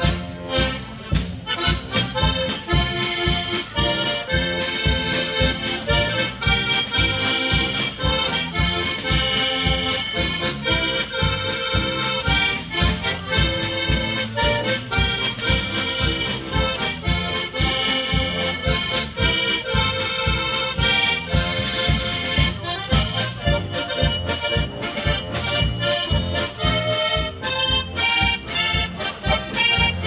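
Polka band playing: three button accordions carry a lively tune over a steady, even beat from drums and guitar.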